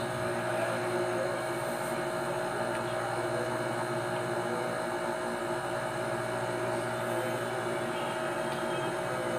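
A steady electric hum from an appliance running in the room, with several steady tones and no change in level.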